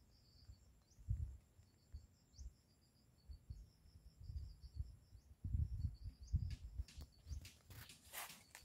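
Footsteps and handling on dry leaf litter, heard as soft low thumps, with dry leaves crackling near the end. Over them a bird chirps a quick run of short high notes during the first half.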